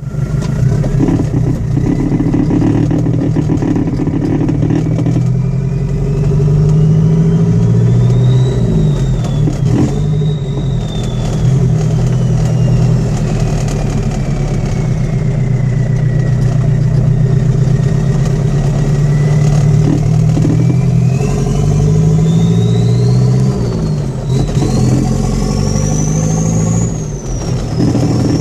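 Toyota 2.2 L diesel engine with a retrofitted VW 1.6 TD turbocharger running through an open 2.5-inch downpipe, the turbo whistle rising and falling in pitch as it spools up and down. The whistle climbs twice, highest near the end.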